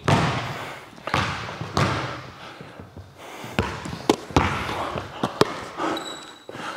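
Basketball dribbled on a hardwood court, sharp bounces about once a second at an uneven pace, each one echoing.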